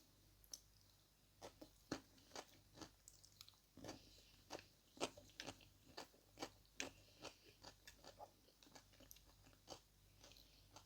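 Faint chewing of a mouthful of food: irregular soft, wet clicks and crunches, about two or three a second.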